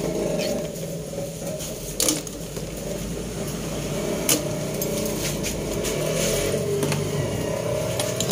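A pot of clams in water heating on a stove: a steady low rumble, with a sharp click about two seconds in and another a little past four seconds.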